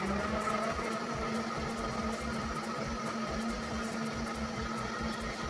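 High-powered countertop blender running steadily at high speed, pureeing fruit, greens and water into a smoothie: a steady motor hum with a whine and a whirring rush from the jar.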